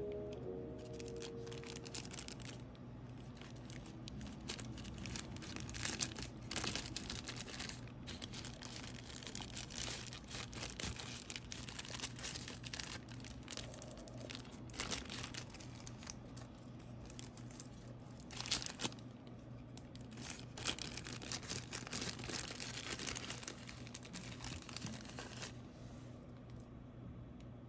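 Thin tissue paper crinkling and rustling in irregular bursts as a pair of glasses is unwrapped from it by hand.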